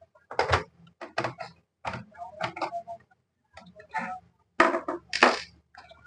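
Irregular clicks and short scrapes of hands and tools working on an LCD monitor's main board as it is taken out of the monitor.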